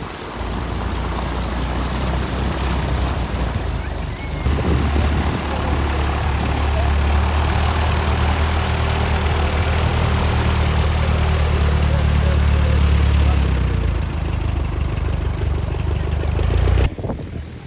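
Vintage biplane's piston engine running at low power as it taxis on the grass, a steady low drone with propeller noise. It grows louder about four seconds in as the aircraft comes close, eases a little later on, and cuts off abruptly near the end.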